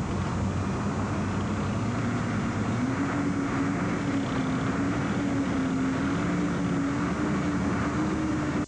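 Engine of a tracked lifeboat launching tractor running steadily, its pitch rising a little about two seconds in and then holding.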